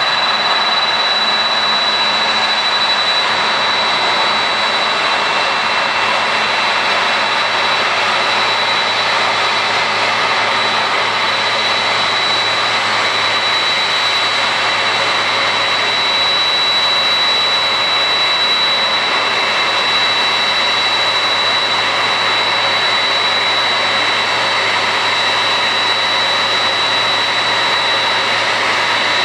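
Boeing 767-300's two turbofan engines running at idle as the airliner taxis slowly onto its stand: a steady high-pitched whine over a low hum, holding even throughout.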